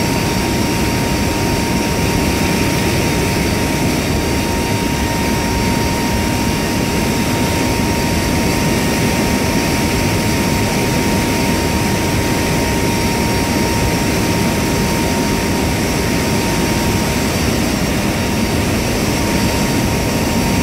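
Steady noise of an aircraft in flight, engine drone and rushing air, unchanging throughout, with a constant tone running through it.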